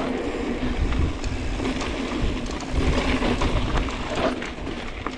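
Mountain bike riding down a dry dirt and gravel singletrack: tyres rolling over loose ground with clicks and rattles from the bike over bumps, and a low wind rumble on the handlebar-mounted camera's microphone.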